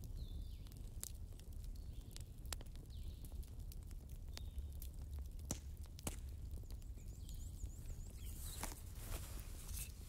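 Campfire crackling: irregular sharp pops and snaps of burning wood over a steady low rumble, with a few brief faint whistles and a denser flurry of crackles near the end.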